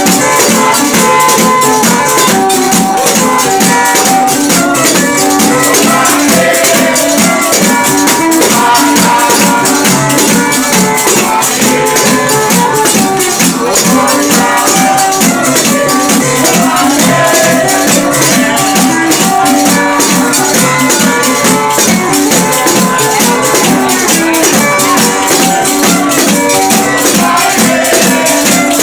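Samba group playing: a fast, steady rhythm of rattling, jingling percussion under a pitched melody line that moves in steps.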